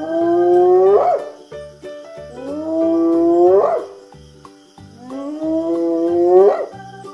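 Hyena whooping: three long calls about two and a half seconds apart, each held and then rising sharply in pitch at the end. A light plinking music track plays underneath.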